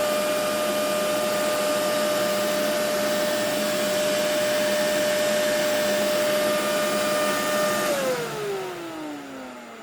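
Kenmore Intuition upright vacuum cleaner running at a steady pitch, with a whine over the rush of air. About 8 seconds in it is switched off, and the motor whine falls in pitch as it spins down.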